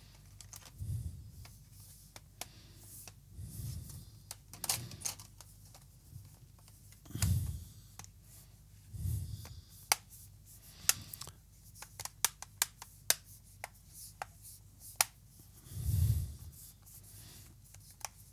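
Plastic bottom cover of an Asus VivoBook laptop being handled and pressed back on, with several dull knocks and rubbing. A run of small sharp clicks comes from about ten to fifteen seconds in as the cover is snapped into place.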